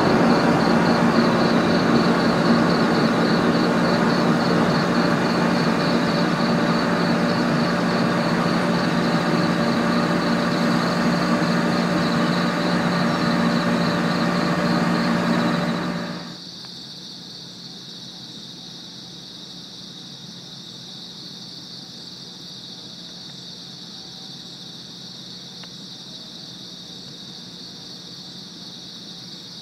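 JR Kyushu 415-series electric train running, a steady hum over rumbling running noise, which cuts off abruptly about halfway through. After that, crickets chirp steadily.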